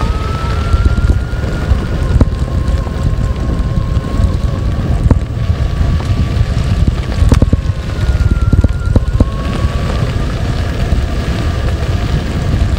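Wind buffeting the microphone of a Zero FX electric motorcycle on a gravel track, heard as a heavy low rumble. Over it, the electric drive gives a thin whine that drifts up and down in pitch with speed. A few sharp knocks come from bumps, around the middle and about two-thirds of the way through.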